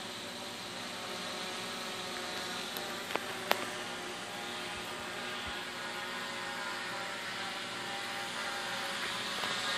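Quadcopter's propellers buzzing overhead, a steady hum of many tones that wavers slightly in pitch. A sharp click about three and a half seconds in.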